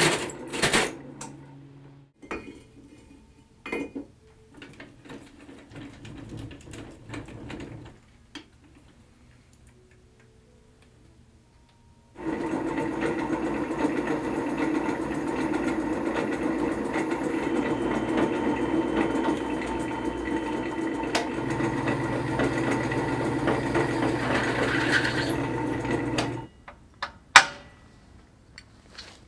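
Drill press cutting steel: a hole saw grinding into steel tube for the first couple of seconds, then, after a quieter stretch of scattered small knocks, the press drilling a steel plate with a twist bit, steady for about fourteen seconds before it stops abruptly. A single sharp metal knock comes soon after.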